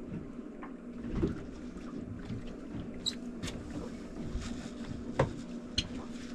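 Boat's outboard motor idling with a steady low hum. Scattered sharp clicks and knocks sound over it.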